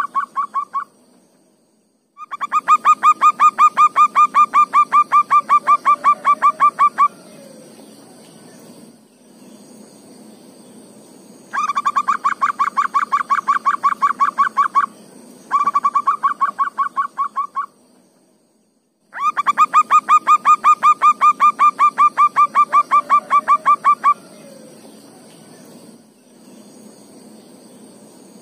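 Zebra dove (perkutut) cooing: runs of quick, rolling staccato notes, each run lasting two to five seconds, with pauses between.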